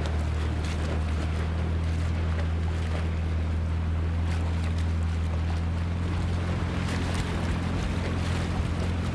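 Outboard motor of a small boat running steadily, a low hum under the wash of water and wind on the microphone; the engine note shifts slightly about two-thirds of the way through.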